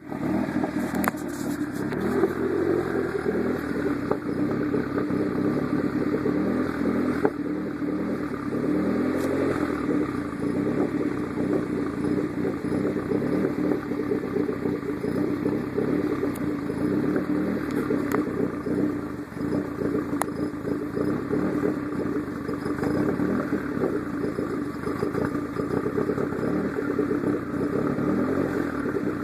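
Engine running rough with an irregular misfire, stumbling unevenly with scattered pops. Per the uploader, this happens once the Hydra unit gets hot after 10 to 15 minutes of running, the sign of its overheating-diode fault.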